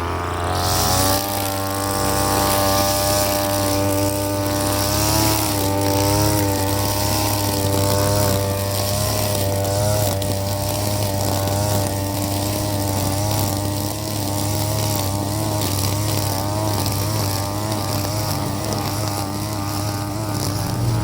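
Brush cutter (grass trimmer) engine running steadily at high speed while cutting grass, its pitch wavering slightly as the load changes.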